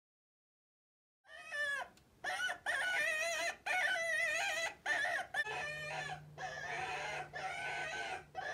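Chickens squawking in a long run of wavering, high calls that start about a second in after silence. A low steady hum joins about halfway through.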